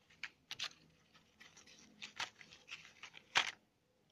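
Handling noise from a cardboard Smarties candy packet, rustled and crinkled by fingers close to the microphone: a string of short, irregular crackles, the loudest a little over three seconds in.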